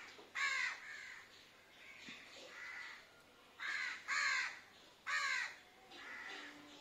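Crows cawing: a string of harsh calls, several loud ones and fainter ones in between, a second or so apart.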